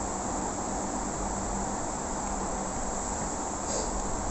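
Steady background noise, an even hiss with no distinct events or pitch, in a pause between recited phrases.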